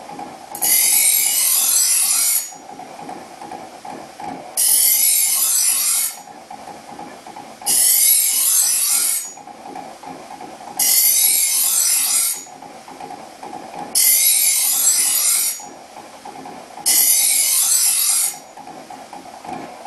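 Kitchen knife edge being ground on the carbide-grit paper wheel of a Porter-Cable bench grinder: six strokes of high hiss, each about a second and a half, roughly every three seconds, over the grinder motor's steady hum.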